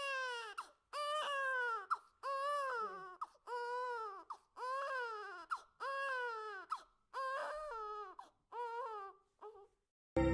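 A baby crying: a string of about nine wails, each under a second long, rising and then falling in pitch with short gaps between. The wails grow fainter toward the end. Music cuts in at the very end.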